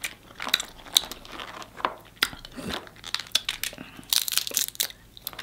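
Snow crab legs being cracked and snapped apart by hand: a run of sharp shell cracks and crunches, with a longer crackling break about four seconds in.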